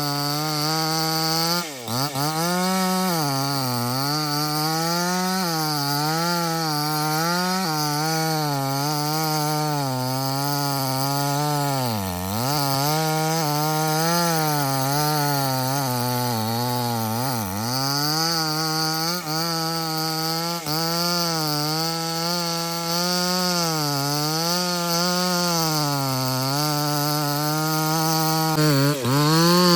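Chainsaw running as it cuts wood. Its engine pitch wavers up and down all the way through as the chain loads and unloads, with deeper dips in speed about 2, 12 and 17 seconds in.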